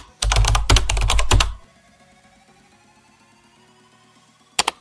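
Rapid typing on a computer keyboard for about a second and a half, then two quick clicks near the end.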